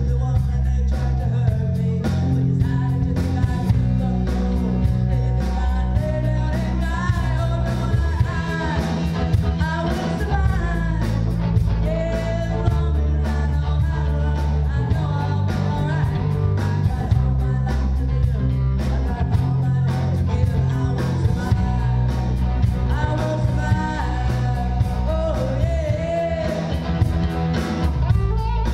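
Live rock band playing through a PA: a woman singing lead over electric guitar, bass guitar and a drum kit.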